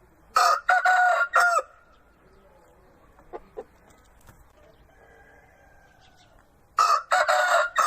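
Rooster crowing twice, two loud cock-a-doodle-doos about six seconds apart, each broken into three parts; two short faint calls come in between.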